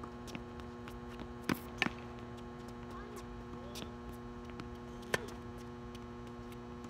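Tennis balls struck by rackets and bouncing on a hard court during a rally: a few sharp pops, two close together about a second and a half in and another about five seconds in. A steady electrical hum runs underneath.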